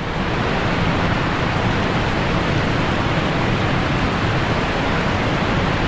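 Steady rush of falling water from a waterfall, an even noise with no pitch and no breaks.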